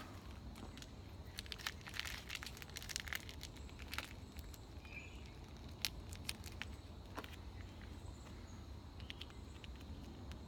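Faint scattered clicks and crinkling from hands handling the chalk-filled kill-shot packets being pinned with thumbtacks to the rubber target.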